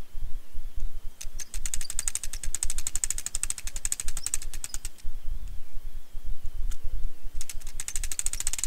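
Rapid, even mechanical clicking in two runs, one from about a second in to near five seconds and one starting about seven and a half seconds in. The later run comes as the spinning reel's handle is turned. A low wind rumble on the microphone runs underneath.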